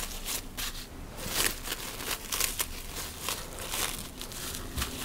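Cling film crinkling and rustling as it is folded around a disc of shortcrust pastry dough, in many irregular crackles.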